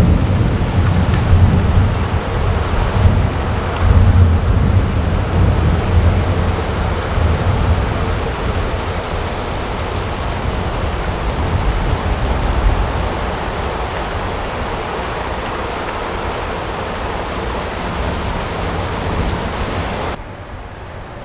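Heavy rain pouring steadily, with thunder rolling and rumbling through the first several seconds, loudest about two and four seconds in, then dying away to the rain alone. The sound drops sharply about a second before the end.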